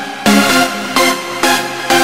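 Electronic dance music with a steady beat, pulsing chords striking about twice a second.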